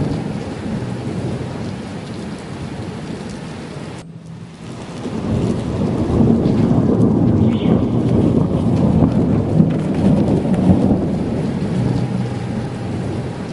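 Rain falling with deep rolling thunder. The rumble eases about four seconds in, then swells back up and rolls on for several seconds.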